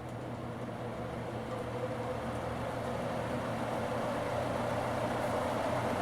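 Moss Caribbean Breeze 36-inch ceiling fan running: a motor hum and a rush of air from the blades, growing louder and rising in pitch as the fan speeds up.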